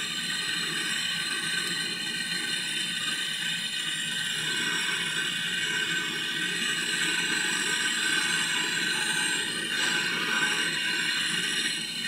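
Handheld gas-cartridge torch burning with a steady hiss while its flame heats a refrigerator's copper service-valve tube for soldering.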